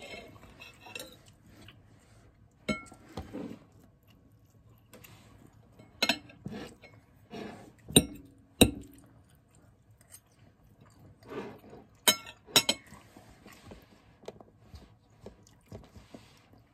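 Metal fork clinking on a plate of rice and vegetables, a handful of sharp clinks spread apart, with soft chewing between them.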